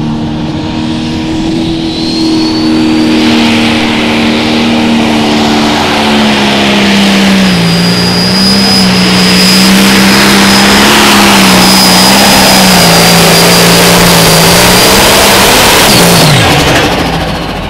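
John Deere 6030 limited pro stock pulling tractor's turbocharged diesel engine at full throttle on a pull, a high turbo whistle over the engine. About seven seconds in, the engine note drops as it loads up against the sled. Near the end the throttle comes off, and the engine and turbo spool down with a falling whine.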